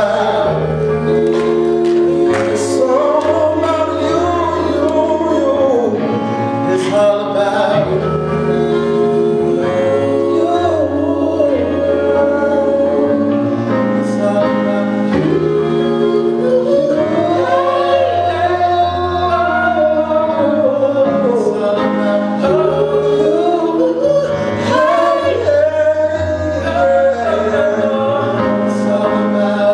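Live band performing a gospel-style song, with male and female voices singing over held bass notes.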